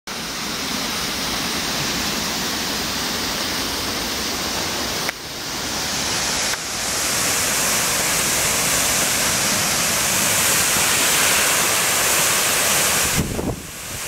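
Steady rushing of a waterfall still flowing through its ice, an even hiss-like roar whose level steps up twice in the first seven seconds. Near the end it dips briefly, with a few low thumps.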